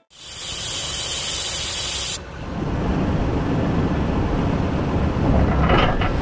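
Wind and road noise from a vehicle driving: a loud, even hiss for about two seconds, then a sudden change to a low, steady rumble of wind buffeting the microphone.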